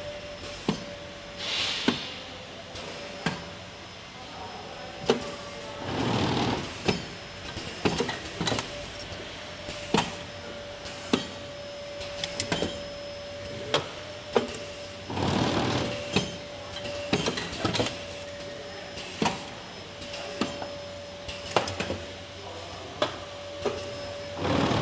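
Automatic cup-mask production line running: sharp clacks of its pneumatic cylinders and fixtures about once a second, a few longer hissing rushes of air, and a steady tone underneath.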